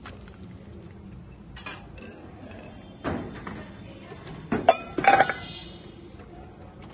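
Glass soda bottles clinking and knocking together in a cooler box. A soft clatter about three seconds in, then a quick run of sharp, ringing glass clinks about a second later.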